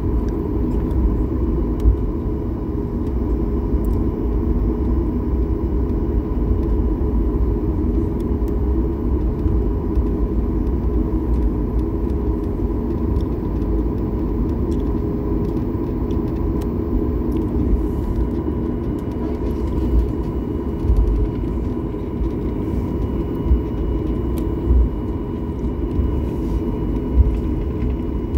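Steady low rumble of an airliner cabin while the plane taxis, its jet engines at low power with a faint steady whine. A few light knocks come through at intervals.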